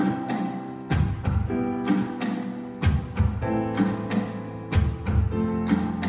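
Music with heavy drum hits over held low notes, played through the waterfall glass tower speakers.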